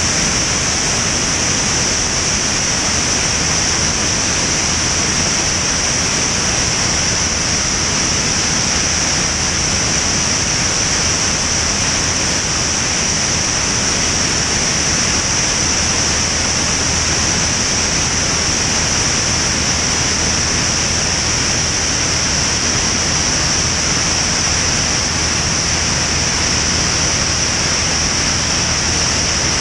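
Steady rush of airflow over a wing-mounted camera in cruise flight, with a steady high hiss and, beneath it, the low, even drone of the Van's RV-10's propeller and piston engine.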